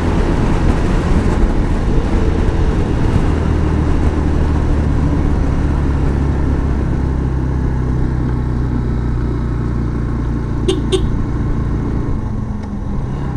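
Yamaha FZS V3's 149 cc single-cylinder engine running steadily as the bike rides downhill, with wind noise on the microphone. Two short high blips about eleven seconds in.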